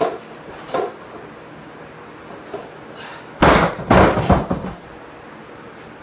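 Loaded barbell with bumper plates dropped from hip height onto wooden lifting blocks: a heavy crash about three and a half seconds in, then several quicker bangs as the bar bounces and settles over about a second. Two shorter, lighter sharp sounds come in the first second.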